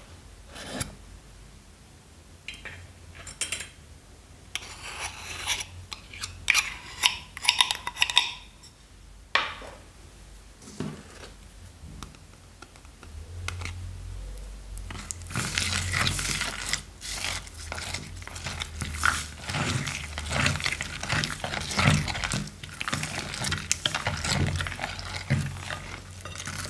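Slime ingredients being handled in a glass dish. First a small tin and a metal spoon click and scrape in scattered short strokes. From about halfway, a silicone spatula stirs the wet mix of glue, cream and foam beads in a dense run of squelching, clicking and scraping against the glass.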